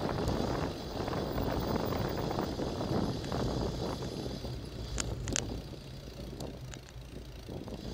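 Wind rushing over a bike-mounted camera's microphone, with tyre and road rumble from the moving bicycle that slowly fades as it slows. A couple of sharp clicks come about five seconds in.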